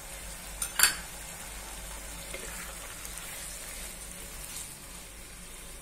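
Sprouted field beans (val) frying in a pan with a low, steady sizzle as they are stirred with a wooden spatula. A sharp knock comes a little under a second in.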